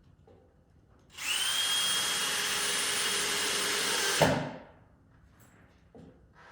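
Power drill driving a deck screw into wood: a steady whine for about three seconds, starting about a second in, ending with a sharp knock as the screw seats, then spinning down.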